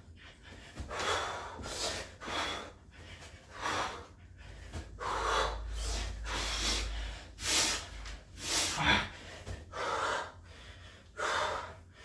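A man breathing hard from exertion during burpees, with loud gasping breaths in and out about once a second.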